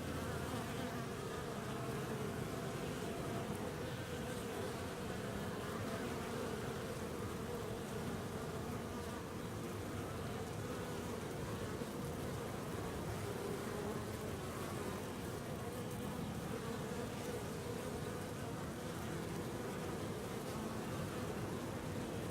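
Steady buzzing of many honeybees flying in and out at a busy beehive entrance.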